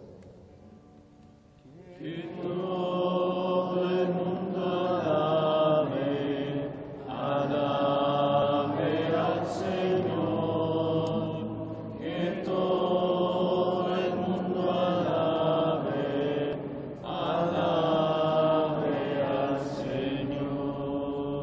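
Voices singing a Taizé chant, a short meditative refrain repeated over and over, starting about two seconds in.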